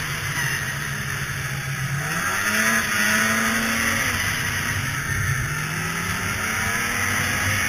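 Polaris two-stroke snowmobile engine running at trail speed, its note rising about two seconds in and then easing off, over a steady hiss.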